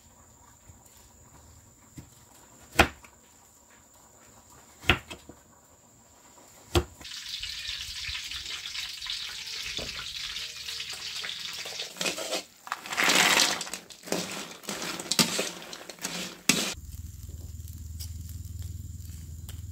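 Three sharp knocks of a crinkle-cut knife chopping taro on a wooden cutting board, then taro frying in hot oil in a wok: a steady sizzle that swells loudly about two-thirds of the way in, with metal clanks of tongs against the wok. Near the end the sizzle stops and a low rumble takes over.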